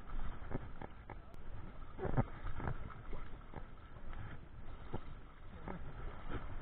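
Spinning reel being cranked by hand close to the microphone: an uneven run of short clicks and knocks from the reel and handle, several a second.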